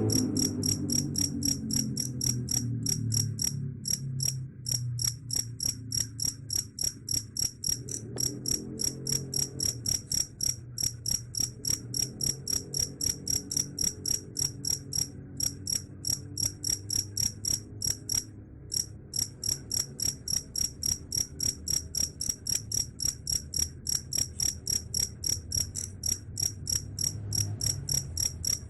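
Cricket chirping: a steady, regular train of short high-pitched chirps, about three a second.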